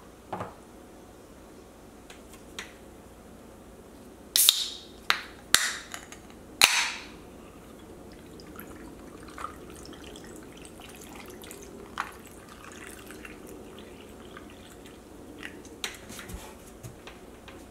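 Ice clinking into a tall glass, four sharp loud clinks, followed by a drink being poured from a can over the ice, a long soft pour with small crackles and clicks.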